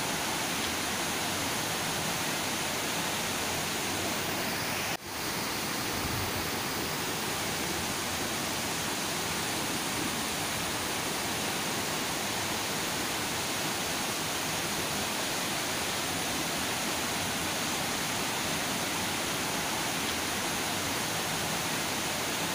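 Steady rush of a fast-flowing river tumbling over rocks, with a brief click and dip in level about five seconds in.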